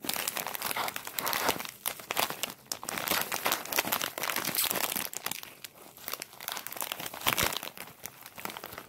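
Crinkly plastic wrapper of a convenience-store sandwich being handled and pulled open, a dense crackling that starts suddenly and thins out after about five seconds.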